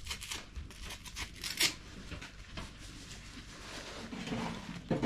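Light clicks and rubbing of parts being handled while a furnace blower motor and its mount are fitted, with one sharper click about a second and a half in.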